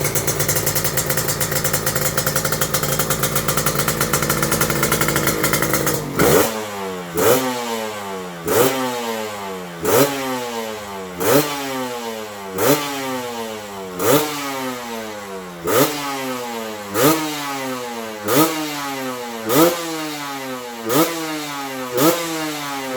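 150 cc two-stroke motorcycle engine breathing through an RC3 Carbon Gen 2 aftermarket silencer, running steadily for about six seconds, then blipped about a dozen times, roughly once every second and a half, the revs rising sharply and falling back after each blip.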